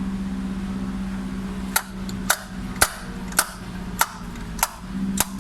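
Hammer blows in a steady rhythm, about two strikes a second, starting a little under two seconds in, each with a short ring.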